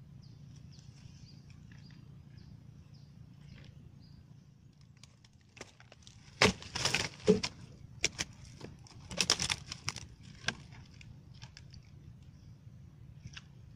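Dry twigs and brush crackling and snapping in two short spells, about six and nine seconds in, over a faint steady low background.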